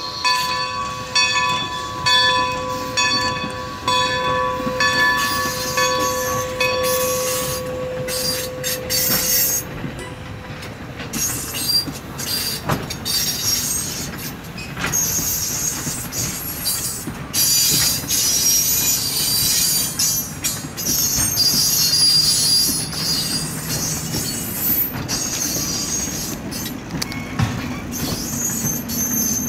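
Steam whistle of 2-10-0 Decapod steam locomotive No. 90 holding a chord of several tones, pulsing slightly, then fading out about nine seconds in. After that the passenger coaches roll past with wheel clicks over the rail joints, and high wheel-flange squeal grows in the second half.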